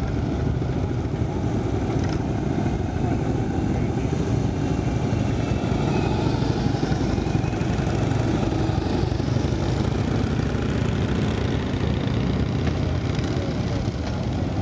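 A line of large touring motorcycles riding past one after another, their engines running steadily with a low, continuous drone.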